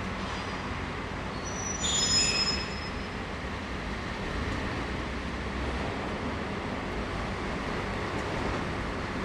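Train running with a steady rolling rumble. About two seconds in there is a brief burst of high-pitched tones.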